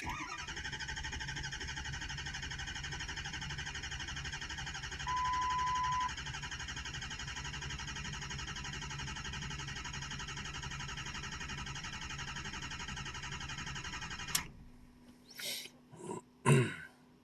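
Ford 6.0 Power Stroke V8 diesel cranking on the starter for about fourteen seconds without firing, then cutting off suddenly, followed by a few clicks and knocks; a one-second beep sounds about five seconds in. It will not start because high-pressure oil only reaches about 200 psi, too little injection control pressure to fire the injectors.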